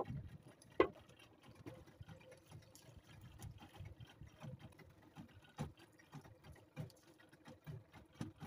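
Quiet handling noises of a fish being unhooked in a wooden boat: scattered faint clicks and small knocks of the lure, hook and line, with a sharper click about a second in.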